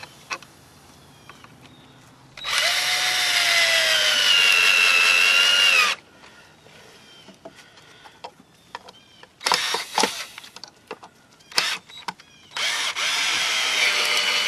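Cordless drill running into pallet wood in two long runs of about three seconds each, a high motor whine that dips in pitch at the end of each run, with a short burst between them.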